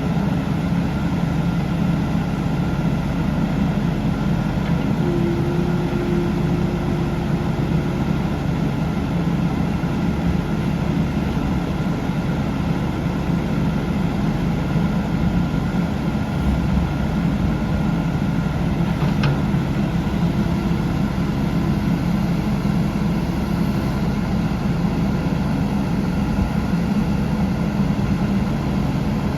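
Kubota KX080-3a excavator's diesel engine running steadily.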